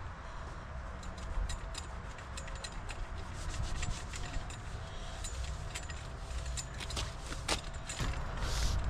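Hands rubbing and scuffing the wrap covering down onto a car dashboard. The sound is steady, with many small sharp clicks and crinkles throughout.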